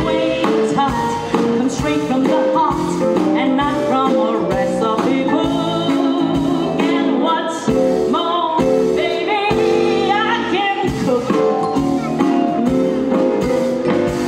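A woman singing a jazzy show tune live into a microphone over musical accompaniment, with long held notes.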